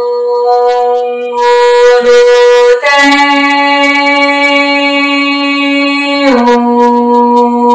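Background music of long, held notes from a reed-like wind instrument, the pitch stepping up about three seconds in and back down a little after six seconds.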